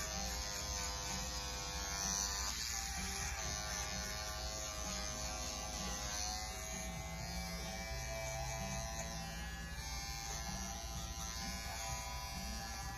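Small handheld battery-powered pet grooming tool buzzing steadily as it works on a cat's paw, its pitch wavering slightly now and then.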